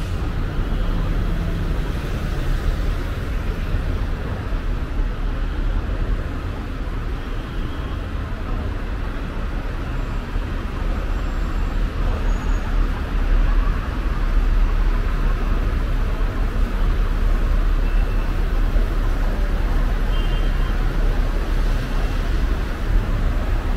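Steady road traffic noise: a constant low rumble of vehicle engines.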